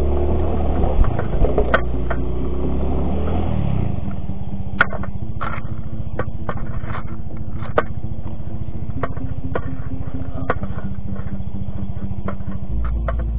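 Yamaha X-Ride 125 scooter's single-cylinder engine running at low speed over rough dirt, its pitch rising and falling for the first few seconds and then holding steady. Scattered sharp clicks and knocks come through over the engine sound.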